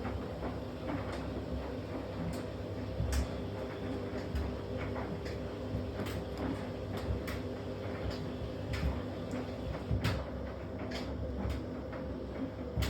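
Panels and parts of a washing machine being yanked and wrenched apart by hand, giving irregular knocks, clicks and rattles, with louder knocks about three, seven and ten seconds in.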